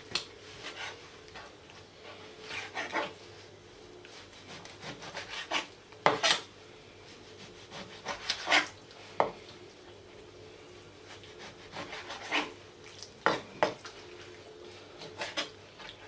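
Kitchen knife chopping raw pork liver on a cutting board: irregular knocks of the blade against the board every second or two, some in quick pairs, with soft rubbing of the slicing in between.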